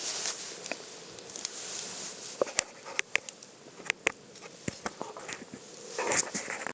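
Burning wood crackling, with irregular sharp pops and snaps over a soft hiss.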